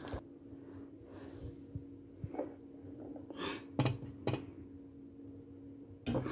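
A few short clinks and knocks of kitchen utensils against a cooking pot, the loudest two in quick succession near the middle, over a steady low hum.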